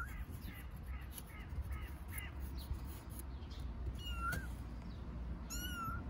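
Young kitten meowing for its mother: short, high-pitched, arched meows, one at the start and two more about four and five and a half seconds in.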